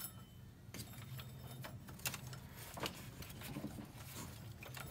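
Faint handling noises: scattered small clicks and rustles from hands working a zip tie and a new drive belt around the engine's pulleys, over a low steady hum.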